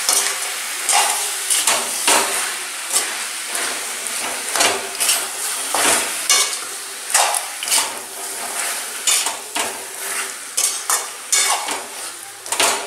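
Chicken pieces frying in oil with ground spices in a metal kadai, sizzling steadily, while a metal spatula scrapes and turns them against the pan about twice a second: the dry 'kosha' stage of frying meat down with its masala before water goes in.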